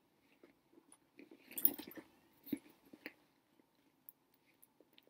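A handbag being handled close to the microphone: soft rustling and scattered small clicks, with a louder burst of rustling about a second and a half in.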